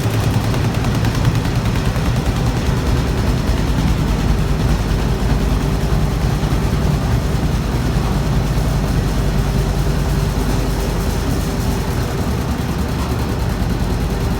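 Emasan EHC240 industrial carpet-beating machine running steadily: a low motor hum under a dense, rapid rattle of beating strokes.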